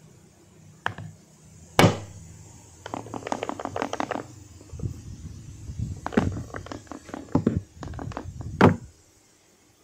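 Handling noise close to the microphone: sharp knocks and thumps, the loudest about two seconds in and near the end, with stretches of rapid clattering in between.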